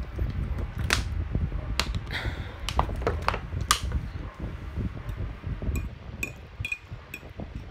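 A few sharp clicks and knocks, then a metal fork clinking and scraping on a ceramic plate, with a few short ringing taps about six seconds in.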